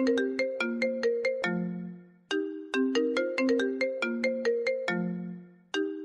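Phone ringtone, billed as the iPhone 13 Plus ringtone: a short melody of quick, sharply struck notes that fade fast. Each phrase ends on a lower held note and loops about every three and a half seconds.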